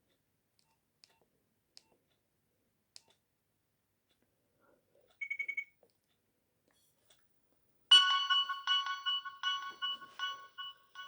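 Nokia 6021 mobile phone playing a ringtone through its speaker: starting about eight seconds in, a quick repeating pattern of bright electronic notes that breaks off near the end. Before it, a short burst of rapid high beeps about five seconds in and a few faint clicks.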